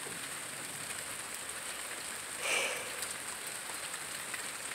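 Steady rain falling, an even hiss with scattered drop ticks. A brief louder noise sounds about two and a half seconds in.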